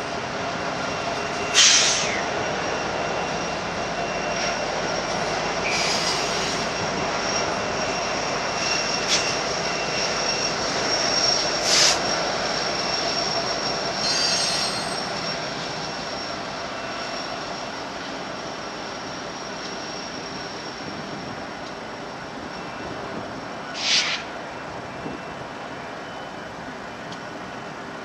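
Union Pacific double-stack container train rolling past, its wheels squealing: a thin high squeal runs throughout, with sharper squeals about 2, 12 and 24 seconds in. The rolling noise fades in the second half as the end of the train moves away.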